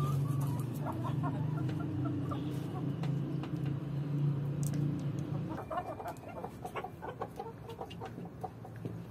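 Chickens clucking, with short calls scattered through the flock. A low steady hum runs underneath and stops about halfway through.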